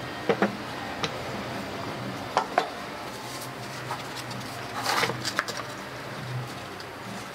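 Wooden parts of a homemade belt sander, its plywood frame and wooden rollers, knocking and clattering against each other and the wooden workbench as they are handled and set down. There are sharp knocks near the start, a pair about two and a half seconds in, and a quick cluster about five seconds in.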